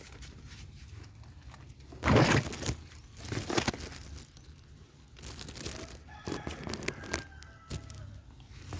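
Leaves and branches rustling and crackling as they brush against the phone up close, in several short bursts, the loudest about two seconds in.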